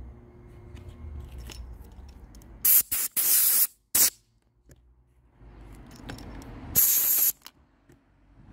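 Compressed-air blow gun blasting air to clean dirt out of a chainsaw's recoil-starter cover and openings: a quick cluster of four hissing blasts about three seconds in, then one more blast about seven seconds in.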